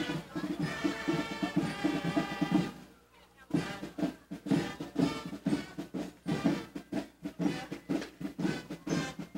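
Marching band playing, brass horns over field drums, for the first few seconds. The sound breaks off about three seconds in, then the drums come back with a steady marching beat, the horns faint beneath them.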